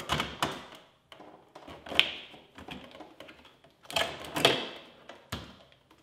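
Plastic clicks, knocks and scraping as a Samsung refrigerator's ice maker is unlatched from its top locking clip and slid forward and down out of its compartment: a sharp click about two seconds in, a cluster of clicks and scraping around four seconds, and a last knock near the end.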